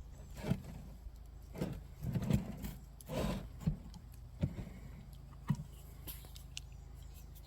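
Short, scattered hisses and handling noises from spraying the outside of a wooden swarm trap, over a steady low engine hum.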